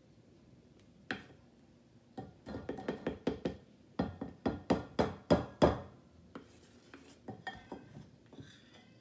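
A metal spoon scooping flour into a plastic measuring cup over a ceramic flour canister: a run of scrapes and knocks, then about six sharp taps in a row, roughly three a second and louder towards the end, then lighter scraping.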